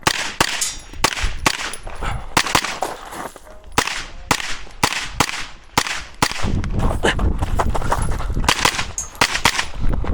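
A pistol-caliber carbine firing quick strings of shots, several a second with short pauses between strings. A low rumble runs under the shots in the second half.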